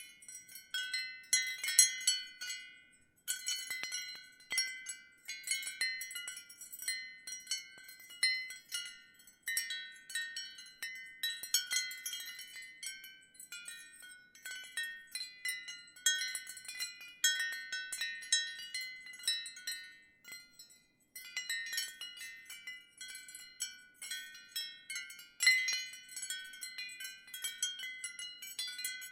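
Ceramic wind chimes tinkling in a gentle breeze. Light strikes come at irregular moments, each a few high ringing tones that fade quickly, with brief lulls about three seconds in and again around twenty seconds.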